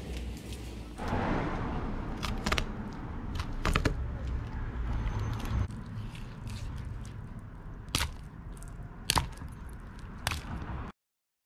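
Knife cutting through a mahi-mahi's flesh and rib bones, crunching, with several sharp cracks as the blade snaps through bone.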